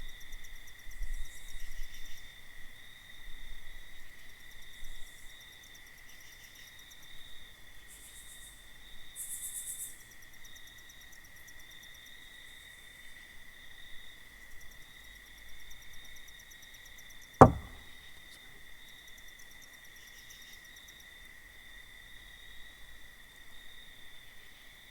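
Steady night chorus of crickets, an unbroken high trill. About seventeen seconds in, a single sharp knock cuts through it.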